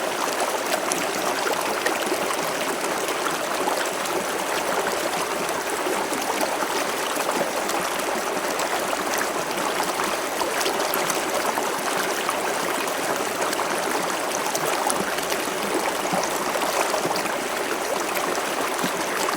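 River water flowing and splashing over rocks in a steady rush, with small trickles and gurgles mixed in.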